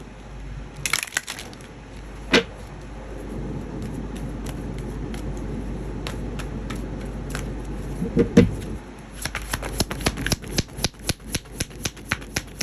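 A deck of cards being shuffled by hand. First come a few separate card taps, then from about nine seconds in a quick run of card clicks, several a second.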